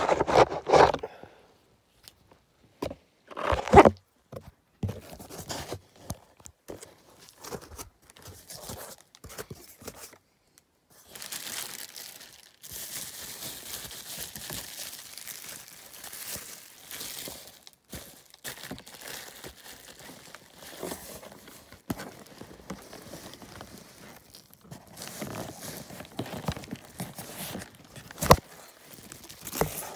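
Plastic bubble wrap and parcel packaging crinkling and tearing as it is pulled off a shoe box, with scattered handling clicks. There is a longer stretch of crinkling in the middle, and loud knocks of the box being handled about four seconds in and near the end.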